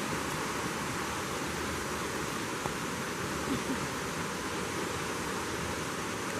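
A small waterfall's water rushing as a steady, even hiss.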